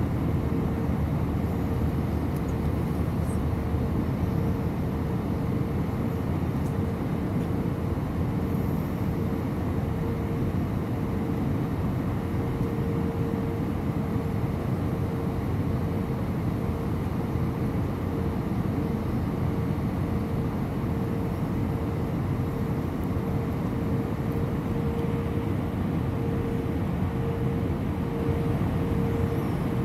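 Cabin noise of an Airbus A319 airliner descending on approach: a steady rush of engine noise and airflow with a steady mid-pitched hum running through it, growing slightly louder near the end.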